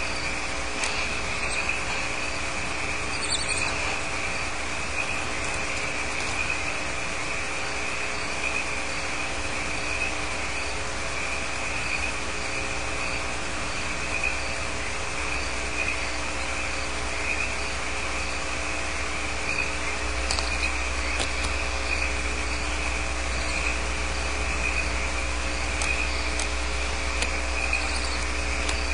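Crickets chirping in a steady chorus, one constant high trill, over a low electrical hum, with a few faint clicks now and then.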